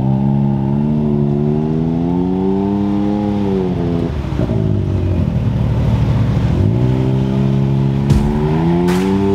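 Can-Am side-by-side race car's engine running under light throttle as it drives off. Its note climbs steadily over the first few seconds, falls away about four seconds in, then picks up and climbs again twice before the end.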